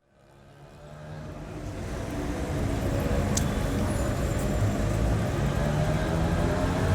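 Road traffic on a main country road: the steady noise of passing cars and trucks, engines and tyres, fading in from silence over the first two seconds.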